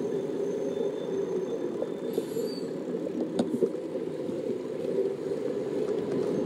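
A bicycle rolling along an asphalt bike path: a steady rumble of tyre and wind noise with light rattles and clicks from the bike, a few sharper ones about three and a half seconds in, and city traffic around it.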